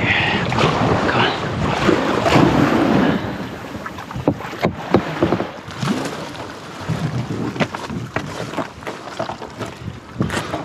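Sea kayak being paddled through choppy water, with water splashing and wind buffeting the microphone. After about three seconds it turns quieter, with scattered short clicks and knocks.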